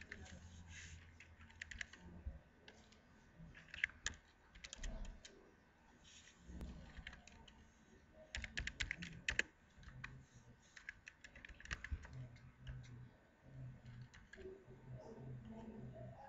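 Computer keyboard typing in short bursts of keystrokes separated by pauses, the busiest run about halfway through.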